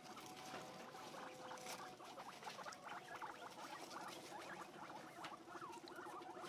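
Guinea pigs eating grass: quick, faint chewing and rustling of the leaves, with a faint steady hum underneath.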